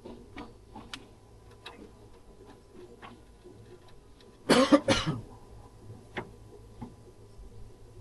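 A person coughing twice in quick succession about halfway through, amid scattered light clicks and taps.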